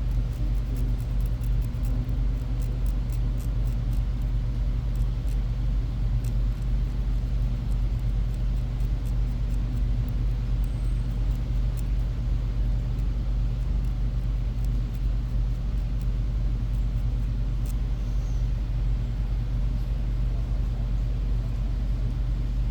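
Steady low background hum, with faint light ticks and scrapes through the first several seconds as a tool scratches burnt carbon deposits off the airsoft gearbox's trigger switch contacts.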